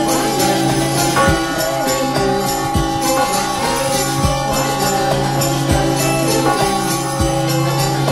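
Swinging tower bell ringing, its clapper striking at a steady pace while the long ringing tones overlap.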